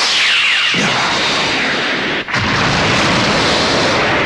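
Cartoon attack sound effects: a sudden loud rushing blast with falling whistles at first, then, after a brief drop a little past two seconds, a sustained explosion with a deep rumble.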